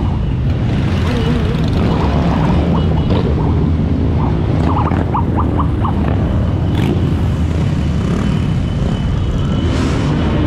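A procession of motorcycles riding past one after another, their engines a steady low rumble, with a few short high pips about halfway through.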